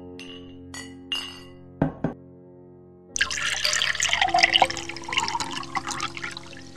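A few glass clinks, then liquid poured into a glass for about three seconds, over soft background music.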